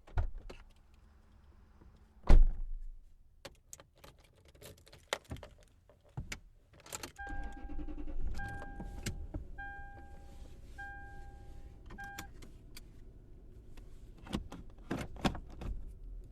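A car door shuts with a heavy thump about two seconds in, followed by keys jingling and clicking; about seven seconds in the car's engine starts and runs at a low idle while a dashboard warning chime beeps five times. More clicks and handling sounds come near the end.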